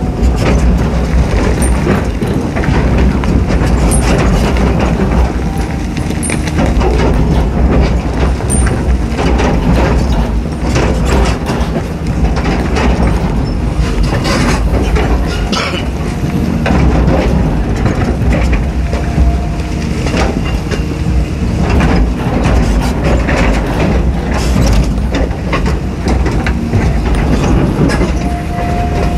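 Caterpillar 320D hydraulic excavator's six-cylinder diesel engine running under load while digging, with frequent clanks and knocks of the steel bucket against rock and soil.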